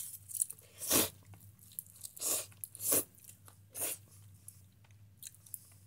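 A person eating close to the microphone: about five loud, short mouth sounds in the first four seconds, with small clicks between.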